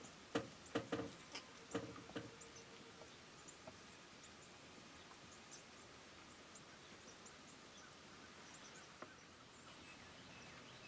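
Whitetail buck giving a quick series of about six short grunts in the first two seconds, the tending-grunt kind a buck makes while following a doe. Faint high bird chirps carry on after.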